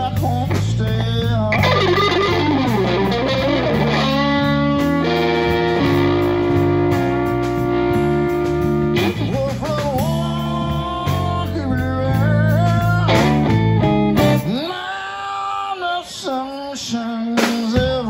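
Live blues band playing: a Telecaster electric guitar with bent notes over Fender bass and drums. About fourteen and a half seconds in, the bass and drums drop out for a few seconds, leaving the guitar alone, then the band comes back in near the end.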